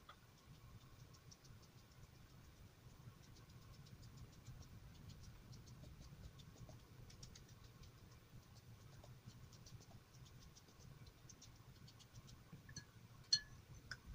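Very quiet, irregular light ticks and pats of a filbert paintbrush working watery acrylic paint on paper and in a metal paint tray, with one sharper click near the end.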